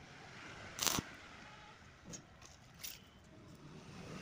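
Metal pieces being handled against a square-bar steel frame: one sharp clank about a second in, then two fainter knocks, over a low background hum.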